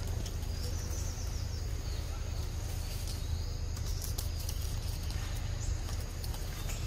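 Outdoor forest ambience: a steady low rumble, with scattered light clicks and a few faint high chirps.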